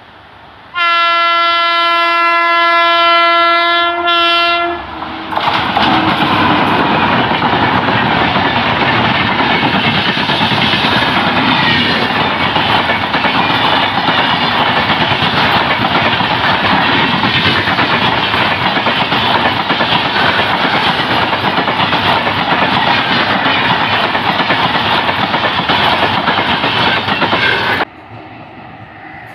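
Indian Railways electric locomotive sounding one long horn blast of about four seconds, a steady pitched tone. Then the express train's coaches pass close by at speed with loud, steady wheel-and-rail noise, which cuts off suddenly near the end.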